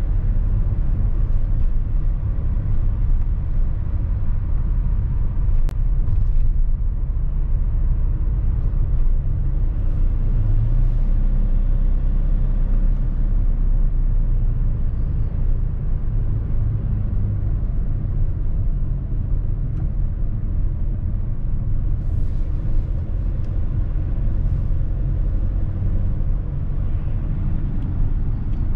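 Mercedes-Benz Sprinter van driving: a steady low rumble of engine and tyre noise on the road, with a single short click about six seconds in.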